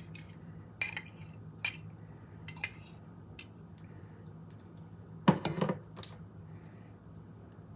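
A kitchen utensil clinking and tapping against a mixing bowl, a few light clinks followed by a louder cluster of knocks about five seconds in, as the last of a cream mixture is scraped out.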